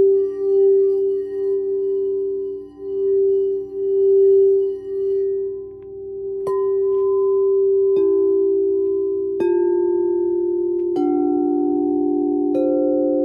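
Frosted crystal singing bowls from a chakra-tuned sound bath set. At first one bowl's ringing tone swells and fades in slow waves. Then, from about halfway, five bowls are struck one after another about a second and a half apart, each at a different pitch, and every note rings on so the tones build into a layered chord.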